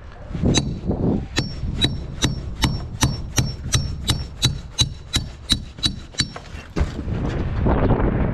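A metal hammer striking in a steady rhythm, about sixteen blows at nearly three a second, each with a short metallic ring. The blows stop about six seconds in, followed by one lone knock.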